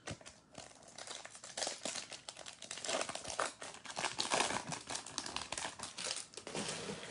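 Foil wrapper of a 2020 Topps WWE Chrome trading card pack crinkling as it is torn open by hand: a continuous run of crackles, loudest midway.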